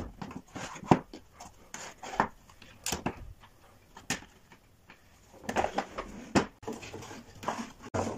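Wooden knocks and clicks as the legs and panels of a folding wooden xiangqi table are handled and unfolded, a string of separate sharp taps with a denser cluster a little past the middle.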